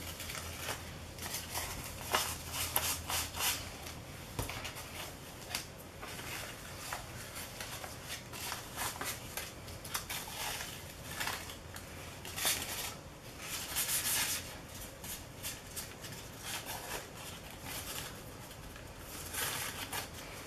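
Thin paper rustling and crinkling in irregular short bursts as sheets are handled, pressed down by hand onto a gel printing plate and peeled back off.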